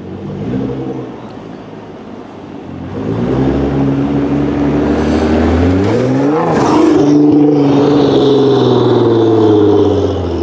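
Nissan GT-R R35's twin-turbo V6 through a straight-piped Armytrix exhaust, pulling away with revs rising over a few seconds and passing close by about six seconds in, then running at steadier revs as it moves off.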